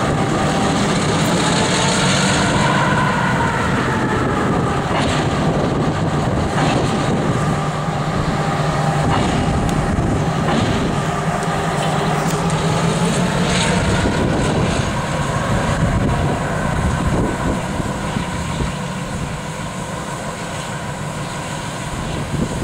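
Diesel switcher locomotive engine running steadily, a low drone with a higher whine above it that slowly rises and falls in pitch, and a few faint clanks.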